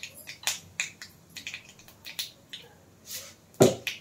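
Tadka of mustard seeds, panch phoron, dry red chillies and curry leaves crackling and spluttering in hot oil in a wok. Irregular sharp pops, a few a second, the loudest about three-quarters of the way through.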